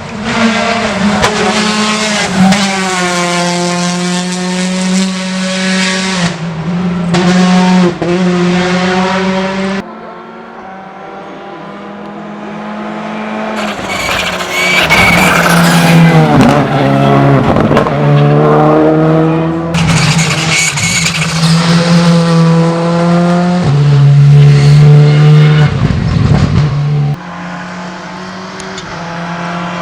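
Rally cars driven flat out on a special stage, one after another. Each engine revs up and drops back through gear changes and braking as the car passes, with some tyre squeal. The sound breaks off abruptly about ten seconds in and again near the end as the next car comes.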